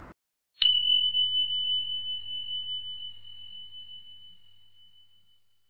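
A single bell-like "ding" sound effect, like a notification chime: one clear high tone struck about half a second in, then ringing and slowly fading away over about five seconds.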